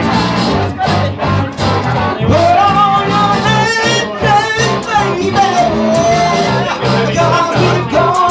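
Live rock band in a packed room: a man singing into a microphone over electric guitar and bass, with the bass notes keeping a steady beat.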